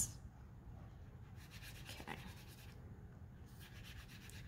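Faint swish of a water brush's tip stroking wet watercolor paint across paper, in two stretches of strokes, the first about a second and a half in and the second near the end.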